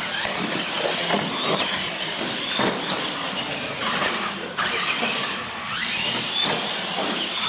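Radio-controlled monster trucks racing on a concrete floor: the whine of their motors and gears rises and falls in pitch as they speed up and slow down, over the rumble of the tyres, with several sharp knocks as they run over the ramps.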